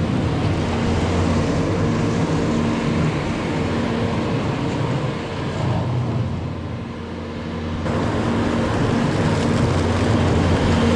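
Skid steer's diesel engine running steadily with a held droning pitch. It drops somewhat a little past the middle and comes back up about eight seconds in.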